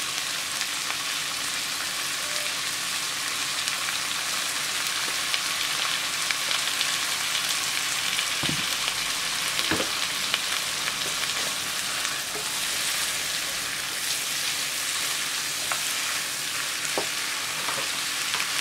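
Chicken and soaked sea cucumber pieces sizzling in hot oil in a nonstick wok while being stirred with a slotted spatula: a steady frying hiss, with two short knocks about halfway through.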